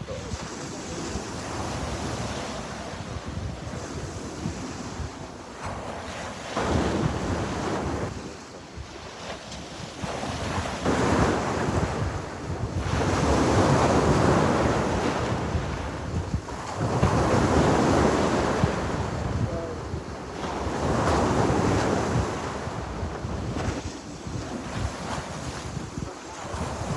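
Sea waves washing onto a shore, a steady rush of surf that swells and ebbs every few seconds, with the biggest surges about halfway through.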